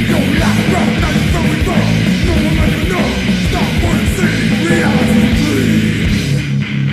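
Heavy metal band recording from a 1988 demo tape: loud, dense distorted guitars, bass and drums playing a fast riff. Near the end the top end thins out and the guitars carry on more exposed.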